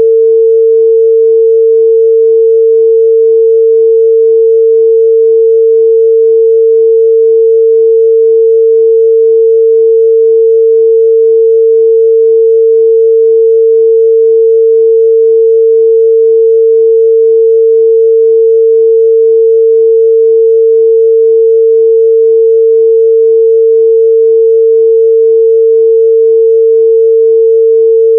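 A pure 451 Hz sine-wave test tone, one steady mid-range pitch held unchanged at a constant loud level.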